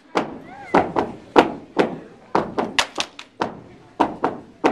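Sorority step team stepping in unison: a rhythmic pattern of sharp stomps, claps and body slaps, about three or four hits a second in short groups.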